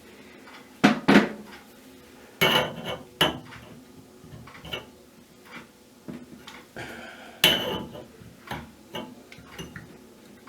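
Metal tools and faucet parts clinking and knocking as they are handled: a series of separate sharp clicks and clanks, two close together about a second in and another loud one past the middle.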